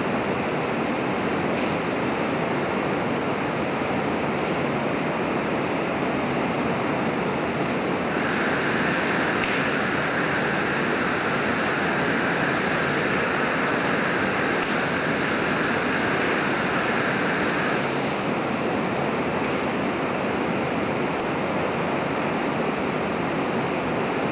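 Steady rushing noise of a burning office cubicle and the heptane spray burner feeding it, at an even level. For about ten seconds in the middle, a narrower, higher hiss joins in, then stops.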